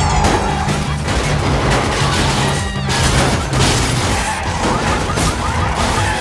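Disaster-film soundtrack: a dramatic musical score with sustained low notes, mixed under crashing and booming destruction effects with repeated sharp impacts, the biggest about three seconds in.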